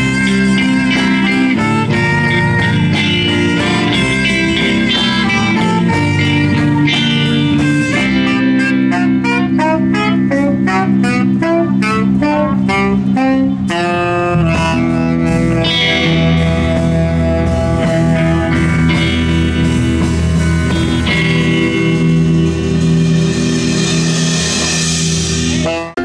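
Live blues band playing, with electric guitar leading over a bass line and a run of quick single notes about halfway through.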